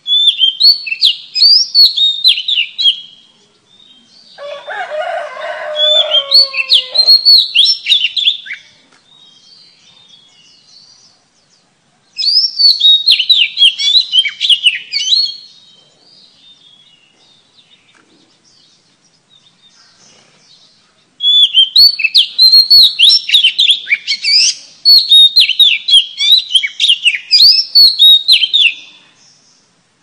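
Oriental magpie-robin (kacer) singing in loud bouts of rapid, varied whistled notes, four bouts separated by short pauses, the longest near the end. A lower, rougher call sounds under the song about five to seven seconds in.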